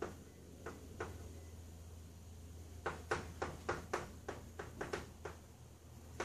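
Chalk tapping and scraping on a chalkboard while writing: two taps early on, then a quick run of about ten sharp taps in the middle, over a low steady hum.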